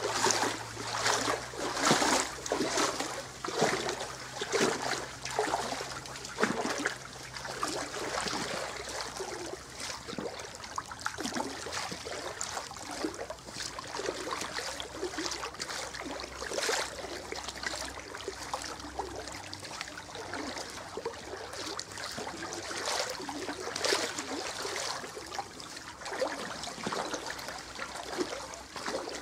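Flood water sloshing and splashing around rubber waders with each wading step, about one swish a second, irregular and going on throughout.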